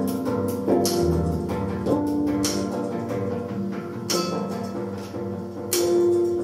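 Live improvised ensemble music: several held, layered notes sound together, cut across by a few sharp percussive strikes that ring on, the strongest about four and six seconds in.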